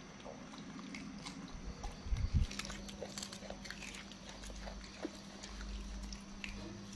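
A monkey biting and chewing raw green beans, with scattered crisp snapping crunches. A low thump about two seconds in.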